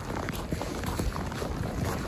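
Footsteps in fresh snow, a string of short irregular crunches, over a steady low rumble of wind on the microphone.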